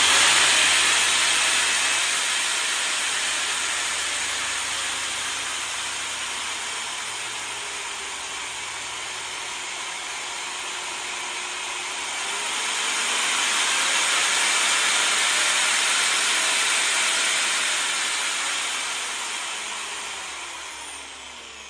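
Angle grinder fitted with a polishing pad, its brushed motor whirring while run through a dimmer-type speed controller. It starts loud, slows and quietens as the knob is turned down, speeds up again about halfway through, then winds down near the end.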